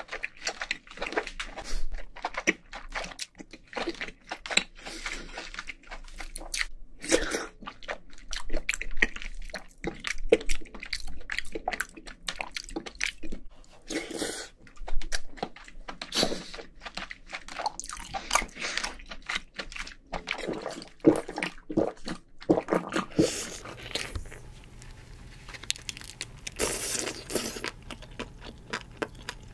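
Close-miked eating of king crab: biting and chewing crab meat, with wet mouth sounds and many short, sharp crunches and clicks.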